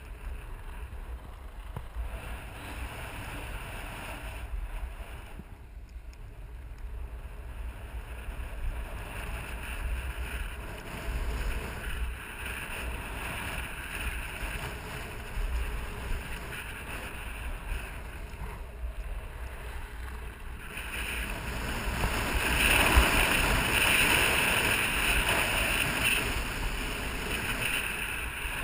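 Skis hissing and scraping over groomed snow at speed, with wind rushing over the microphone. The hiss grows louder about two-thirds of the way through.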